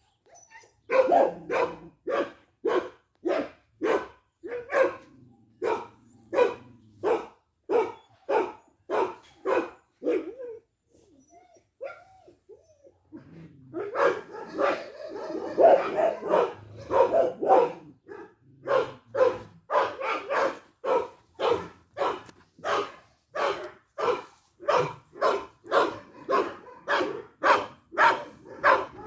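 A dog barking over and over at about two barks a second, with a short break about a third of the way through and a denser stretch just after it.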